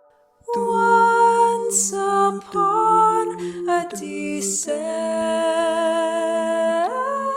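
Wordless a cappella singing: several layered voices hum or vocalize the melody in harmony, coming in about half a second in. They hold long notes that step to new pitches a few times, and slide upward together near the end.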